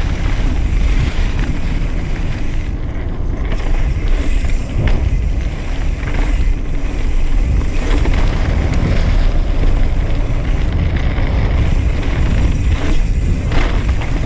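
Wind buffeting the microphone during a fast mountain-bike descent on a dirt and gravel track, over the rolling crunch of tyres on gravel and scattered clicks and rattles from the YT Industries Capra AL Comp bike.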